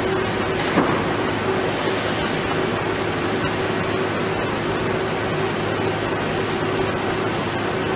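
CNC plate drilling machine's spindle drilling a hole in metal plate with a twist drill. It makes a steady whirring noise with a constant tone, with a short click about a second in.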